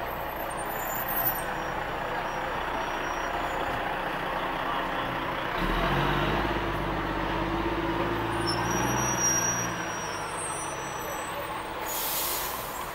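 Fire truck engines running steadily. About halfway in a deeper engine swells and rises in pitch, then falls back. A short burst of hissing air comes near the end.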